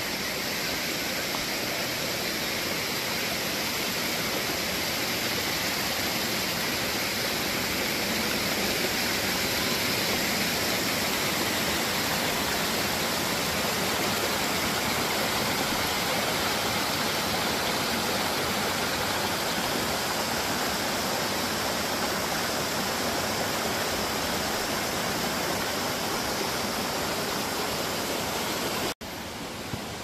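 Mountain creek rushing steadily over rocks and small cascades. Near the end it cuts out for an instant and comes back a little quieter.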